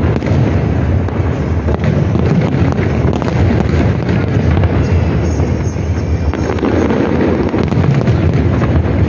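Large aerial fireworks display: many shells bursting in a dense, continuous barrage of booms, with sharp cracks scattered throughout.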